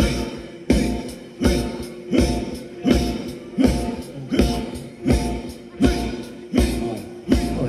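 Live band playing Thai ramwong dance music, with a heavy beat struck about every three quarters of a second.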